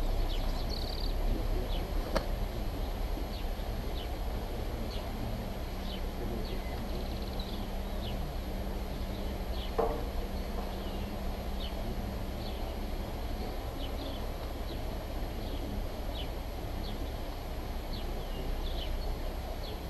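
Outdoor ambience: small birds chirping in short high notes about once a second over a steady low rumble. A low steady hum comes in about a quarter of the way through and stops past the middle, and there is one sharp click near the start.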